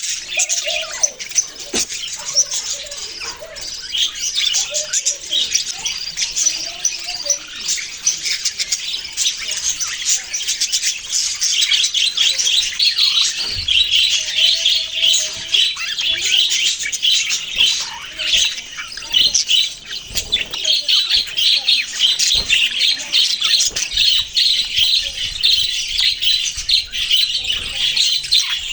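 A flock of budgerigars chattering: many rapid, overlapping chirps and squawks with no break, growing busier about halfway through.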